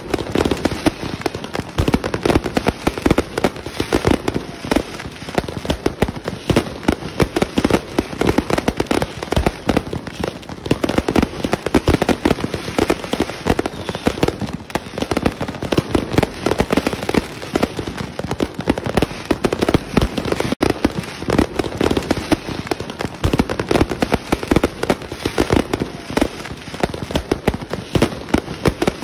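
Fireworks display, aerial shells bursting in a rapid, unbroken barrage of bangs and crackling.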